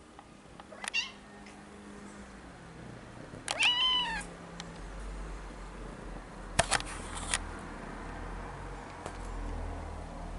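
A cat meowing: a short, high call about a second in, then a louder, longer meow near four seconds. A few sharp clicks follow a few seconds later.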